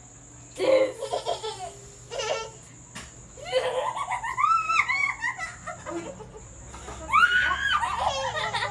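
Girls laughing hard in repeated bursts, with high-pitched squealing laughs, loudest near the end.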